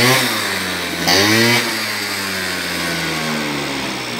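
Motor scooter engine revved twice with quick throttle blips, the pitch rising each time, then settling to a steady idle.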